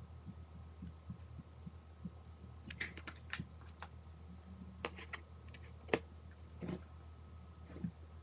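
Scattered light clicks and taps, starting about a third of the way in, with one sharper click near the middle, over a steady low hum.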